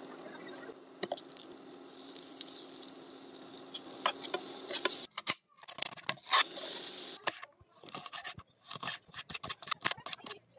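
A steady faint hiss with a low hum as oil goes into a nonstick frying pan on the stove. About five seconds in, a kitchen knife starts slicing red onion and chopping green chillies on a wooden cutting board: irregular crisp strokes that come faster near the end.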